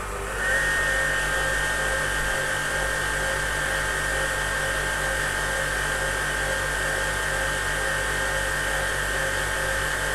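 Kenwood Electronic KM200 food mixer's motor running under test on its electronic speed control. About half a second in its speed rises as the speed dial is turned, then it runs steadily with a high-pitched whine.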